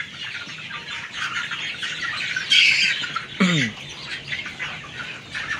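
A flock of young kampung chickens, about eight weeks old, peeping and squawking as they feed, with one loud squawk about halfway through and a call that falls steeply in pitch just after it.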